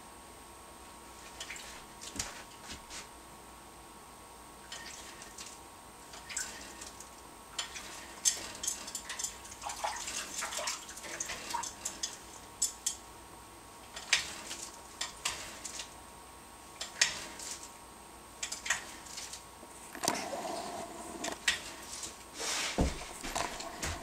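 African grey parrot in its cage making irregular clicks and taps, busiest in the middle and near the end, with a few short squeaks around the middle and a brief held note a few seconds before the end.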